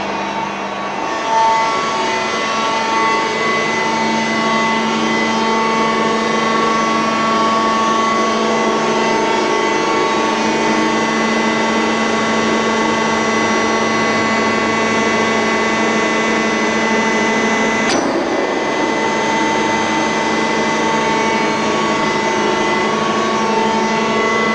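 Heavy metal lathe running steadily with a whine made of several steady tones over a low hum, and one brief sharp click about three quarters of the way through.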